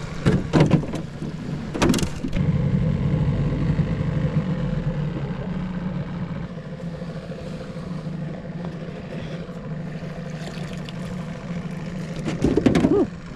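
Boat motor idling with a steady low hum, with a few short clattering knocks about half a second and two seconds in and again near the end.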